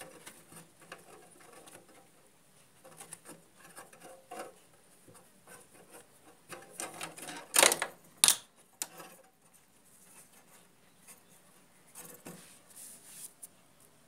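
Hand tools clicking and scraping on a refrigerator's copper pipework while the filter-drier is being replaced. A little past halfway come two sharp metallic clicks close together.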